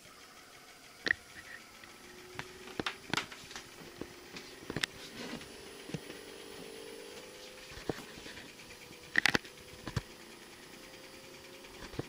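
LG 9500 BTU dual inverter window air conditioner starting up on low fan: its inverter compressor comes on about two seconds in, and its hum slowly rises in pitch as it ramps up. Scattered sharp clicks and taps, the loudest about a second in and again about nine seconds in.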